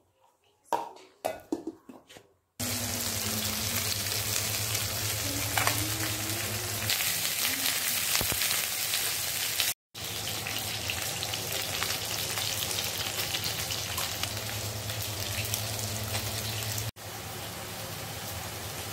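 Ground onion and green chilli paste frying in hot oil in a wok, a loud, steady sizzle that starts about two and a half seconds in after a few light knocks of handling. The sizzle breaks off abruptly twice and resumes.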